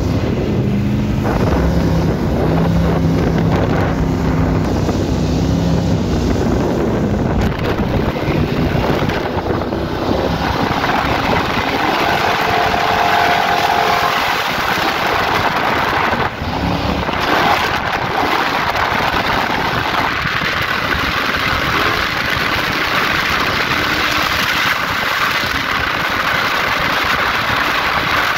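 Boat's open, carbureted inboard engine running steadily under way, with water rushing past the hull and wind on the microphone; after about ten seconds the rush of water and wind grows louder than the engine.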